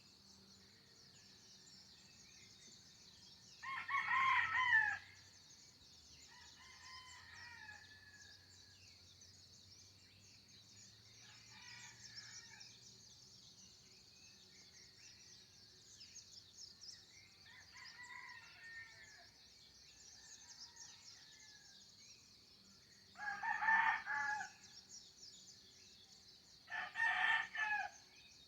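Roosters crowing: three loud crows, one about four seconds in and two near the end, with fainter calls in between, over a steady high-pitched hiss.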